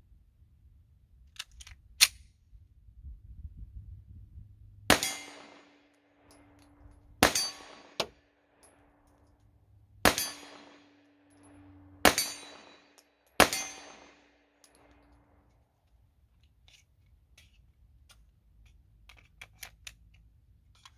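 Glock 45 pistol in a CAA Micro Roni Gen 2 carbine chassis firing 9mm rounds one at a time: five shots over about eight and a half seconds, each trailing off for about a second, with a fainter crack between the second and third. A few sharp clicks come about two seconds in, before the first shot.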